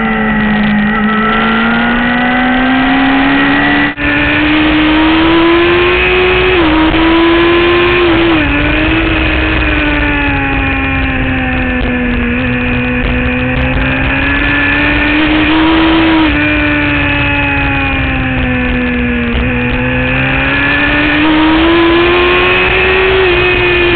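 Suzuki GSX-R sportbike's inline-four engine running hard at track pace. Its note rises steadily under acceleration and falls away again several times, with a few brief sudden dips in pitch.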